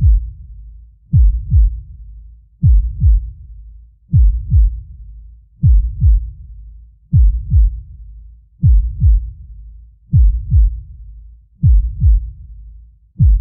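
Deep heartbeat sound effect: slow, steady lub-dub double thumps, one pair about every one and a half seconds.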